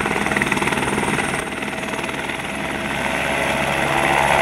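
Light helicopter's rotor chopping in a rapid, even beat as it flies low past, growing louder over the last couple of seconds.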